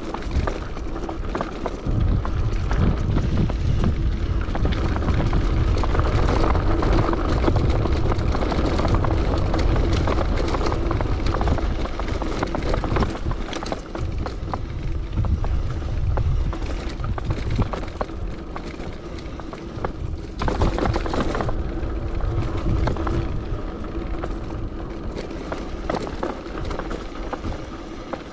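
Bicycle ride over rough ground recorded on an action camera: wind buffeting the microphone as a heavy low rumble, with the bike clattering and a steady hum underneath. The rumble eases for a couple of seconds after the middle, then returns.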